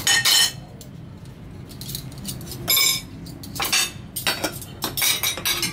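Stainless steel spoons and a ladle clinking and scraping against ceramic plates and a soup bowl as food is served, in short clatters near the start, about three seconds in, and several more over the last two seconds.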